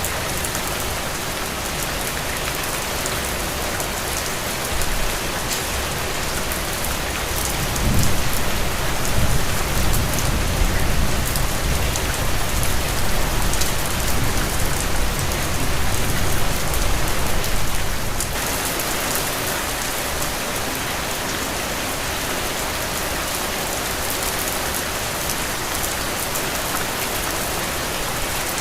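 Heavy rain falling steadily, with a low rolling rumble of thunder that swells in about a quarter of the way through and lasts around ten seconds.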